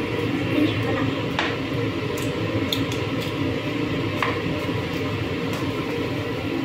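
A knife working through a large raw fish on a plastic cutting board: wet squishing with two sharper clicks, about a second and a half and four seconds in, over a steady background hum.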